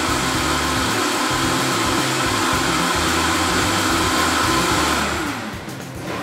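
Countertop blender running at high speed, blending a thin pancake batter of milk, eggs and flour. About five seconds in it switches off, and the motor's pitch falls as it spins down.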